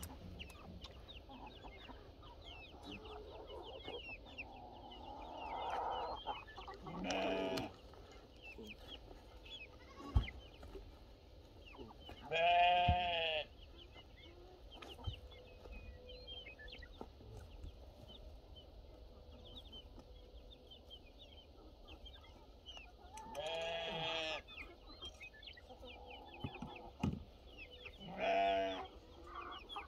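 Goats bleating: about four wavering calls of roughly a second each, spread across the stretch. Under them, chickens keep up a steady clucking and chirping.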